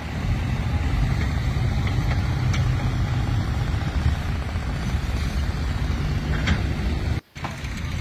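Steady low engine rumble of heavy machinery running, which cuts out for a moment near the end.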